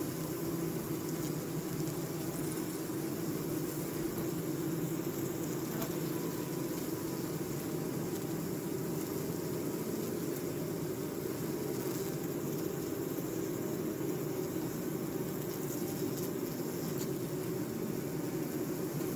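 Honeybee colony humming steadily, an even buzz with no breaks.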